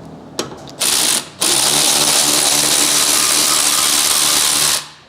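Power ratchet spinning out a 17 mm bolt on the rear brake caliper. It gives a short burst about a second in, then runs steadily for about three and a half seconds and cuts off suddenly near the end.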